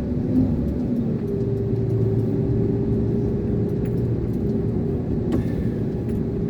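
Iveco concrete mixer lorry's diesel engine running under way, heard as a steady hum whose note steps up about a second in and then holds. A short knock comes near the end.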